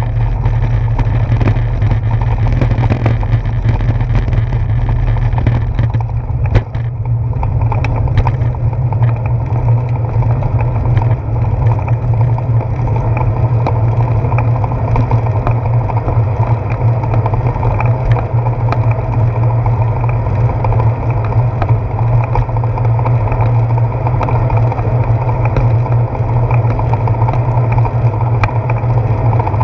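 Steady low rumble and wind noise picked up by a handlebar-mounted GoPro Hero 4 on a moving bicycle: tyre and road vibration carried through the mount, with a few knocks from bumps in the road, the clearest about six to eight seconds in.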